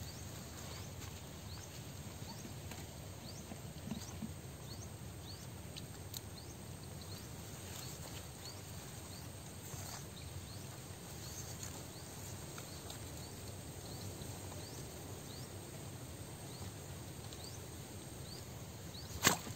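Quiet outdoor ambience: a steady low rumble with faint, short, high chirps repeating about once or twice a second. Near the end comes one sudden sharp swish and splash as the rod is jerked to set the hook on a fish taking the float.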